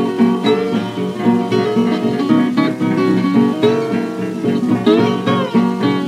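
Acoustic guitar playing a country blues instrumental passage of picked notes, some of them bent, from a 1930 78 rpm record.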